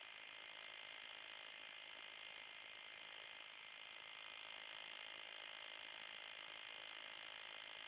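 Near silence: a steady, low hiss with no distinct sounds.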